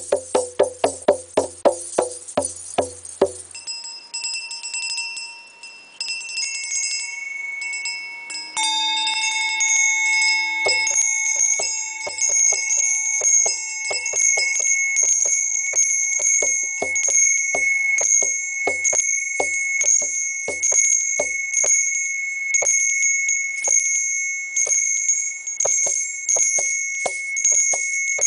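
A small hand drum struck with quick hand strokes for the first three seconds or so, then a brass hand bell (Krishna bell) starts ringing. From about eight seconds in, the bell is rung steadily at about three strikes a second over a sustained high ring, with soft drum taps underneath.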